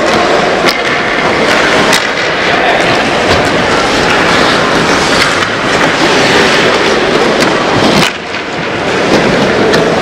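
Ice hockey rink game noise: a loud steady rush, with scattered sharp clacks of sticks and puck on the ice.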